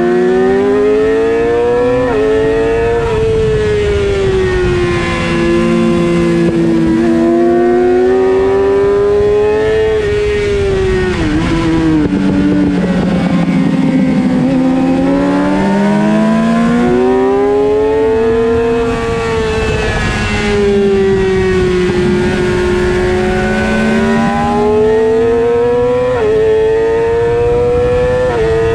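Suzuki GSX-R sportbike's inline-four engine at racing revs, pitch rising and falling with sudden steps at gear changes. It slows for a corner about halfway through, then pulls hard again. Wind rushes over the bike.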